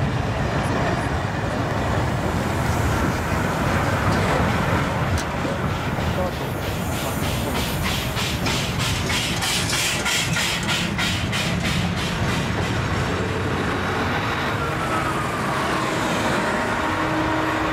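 A train of steam locomotives and a diesel locomotive passing slowly at close range: a steady rumble of wheels and running gear on the rails, with a fast, regular beat in the middle as the TKt48 tank engine goes by. Near the end a steady engine hum comes in as the diesel locomotive passes.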